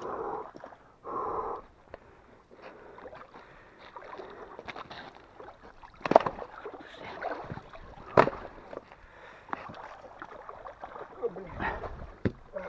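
Hands splashing in shallow icy water and shoving broken ice slabs about, with sloshing and scattered knocks of ice; the sharpest knocks come about 6 and 8 seconds in.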